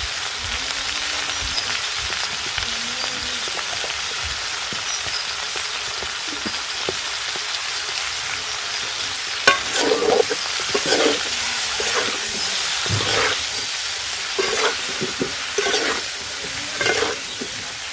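Cauliflower florets frying in hot oil with a steady sizzle. From about halfway through they are stirred, with repeated scrapes and knocks of the spatula against the pan.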